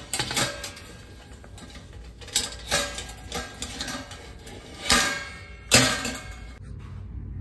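Stainless steel plates clinking and scraping against a wire plate stand as they are fitted into its slots. A string of sharp metallic clinks rings on briefly, and the loudest two come about five and six seconds in.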